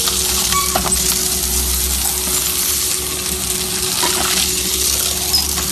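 Hammer crusher running, a steady hum and low rumble under a continuous gritty rattle of material being crushed, with a few faint clinks.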